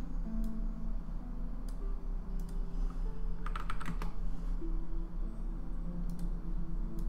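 Keys typed on a computer keyboard: a quick run of presses about three and a half seconds in, and a few single clicks elsewhere, over background music with slow held notes.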